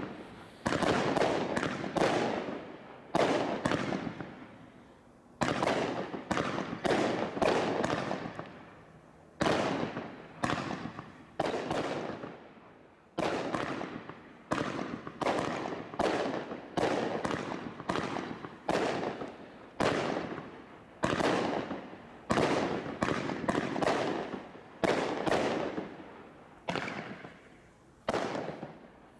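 Consumer firework barrage cakes firing: a long, steady succession of sharp bangs, roughly one every second, each trailing off over a second or so before the next. The firing stops abruptly near the end.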